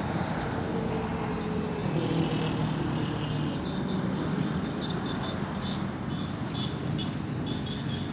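Go-kart engines running on a track, a steady engine drone whose pitch shifts a little.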